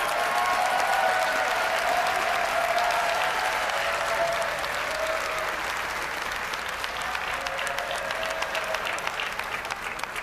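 Audience applauding steadily, the clapping dying away near the end.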